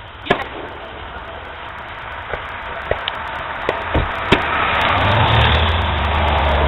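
Fireworks going off: a string of separate sharp pops and cracks, followed from about four seconds in by a low rumble and hiss that grows steadily louder.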